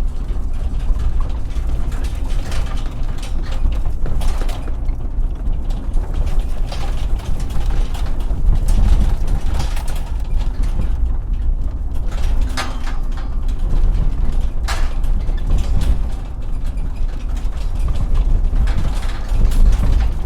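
Truck driving over bumps: a steady deep rumble with irregular rattles, clunks and creaks from the body and loose parts every few seconds.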